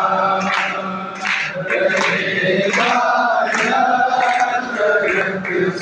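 A group of people singing a psalm (zabur) together in long, drawn-out sung phrases.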